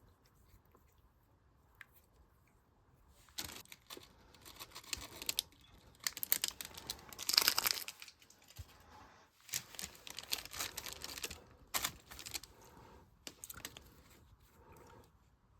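Slime mixed with beads being squished and kneaded by hand, giving crackling, crunchy pops in clusters. It starts about three seconds in and is loudest around the middle.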